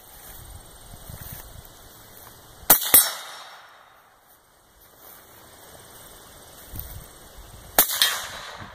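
Rifle fire from an AR-15-style rifle fitted with a suppressor: two quick double taps, each a pair of sharp shots about a third of a second apart, the pairs about five seconds apart, each shot with a short echo.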